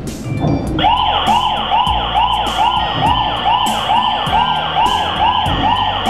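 KERUI WM5221 Wi-Fi alarm host's built-in siren going off because the armed system's door sensor has been opened. It is a loud electronic wail that sweeps rapidly up and down about two to three times a second, starting just under a second in.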